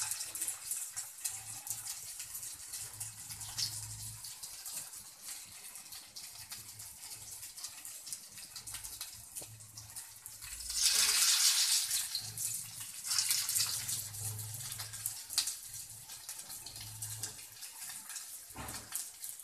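Hot vegetable oil sizzling and crackling in a nonstick frying pan as pakoras of cabbage and red-lentil batter fry. About eleven seconds in the sizzle surges loudly for a couple of seconds as another portion of batter goes into the hot oil.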